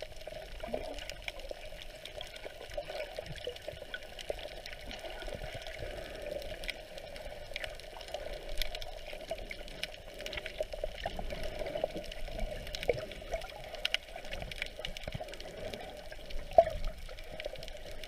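Underwater noise heard through a camera's waterproof housing: a steady muffled water wash with scattered small clicks and pops, and one louder pop near the end.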